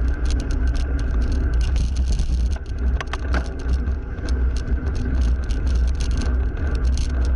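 Motor traffic on a busy main road passing close by a moving bicycle, with a steady wind rumble on the microphone.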